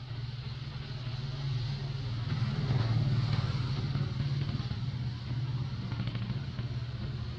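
A motor vehicle's engine running nearby with a steady low hum, growing louder about two seconds in and easing off again, as if passing.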